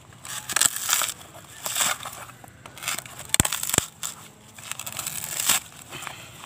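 Dry fibrous husk of a sprouted coconut tearing and crackling as it is pried and peeled apart with hand and machete, in a series of rough rips. Two sharp knocks about half a second apart come a little past the middle.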